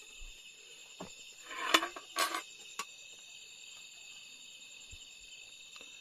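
Crickets chirping steadily, with a few clinks and scrapes of a steel spoon scooping rice from an aluminium pressure cooker onto a plate between about one and three seconds in, the loudest a little before the two-second mark.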